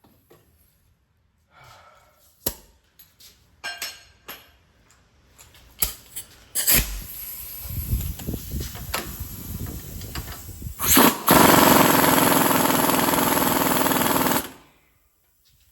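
Metal tools clinking and knocking against a stuck wheel hub assembly, with a loud sharp strike about six and a half seconds in. Near the end a power tool hammers in a rapid rattle for about three and a half seconds, then stops.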